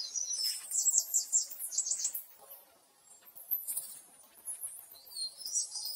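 Small birds chirping and twittering in high, quick phrases, loudest in the first two seconds and again near the end, with a short lull in between.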